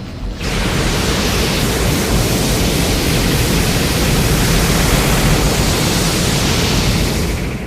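A monster-film sound effect: a loud, steady rush of noise that starts suddenly about half a second in, holds evenly, and drops away at the end.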